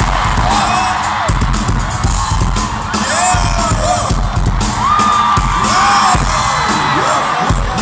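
Loud dance music with a heavy, steady beat played over an arena sound system, with fans' high screams and whoops rising and falling over it.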